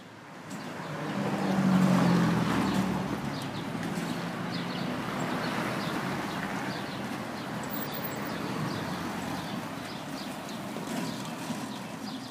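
Street traffic: a motor vehicle's engine passes close, loudest about two seconds in, then a steady hum of traffic.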